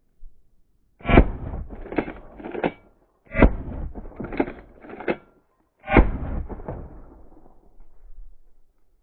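Shotgun firing three shots about two and a half seconds apart, each loud report followed by a couple of fainter cracks.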